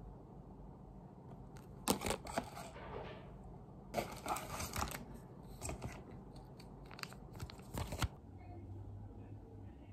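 Hair-dye kit's cardboard box being opened and its plastic packaging handled: short bursts of cardboard scraping and plastic crinkling, about two seconds in, again around four to five seconds, and near the end around seven to eight seconds.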